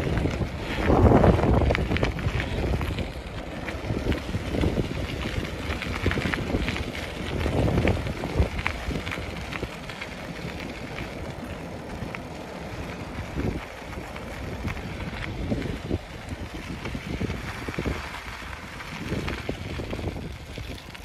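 Wind buffeting the microphone of a phone mounted on a moving bicycle, rumbling in gusts, strongest about a second in and again around eight seconds and near the end. Small scattered clicks from the bike run underneath.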